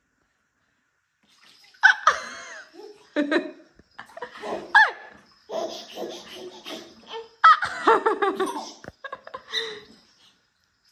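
Laughter and high squeals, with water splashing in a bathtub, starting about two seconds in after a short quiet spell.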